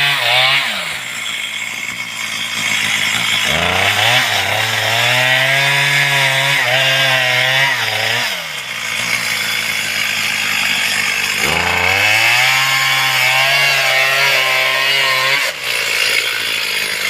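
Stihl chainsaw under throttle cutting into a tree. Its engine rises and holds for two runs of about four to five seconds each, falling back in between.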